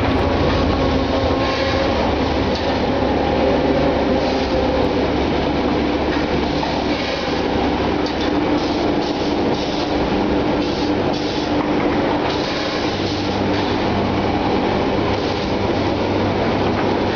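Egg tray (pulp moulding) production line running: a steady mechanical rumble with a low hum and irregular clatter.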